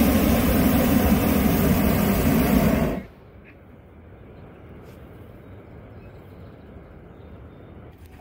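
Hot air balloon's propane burner firing with a steady roar as the balloon lifts off, then shutting off abruptly about three seconds in. A faint background remains afterwards.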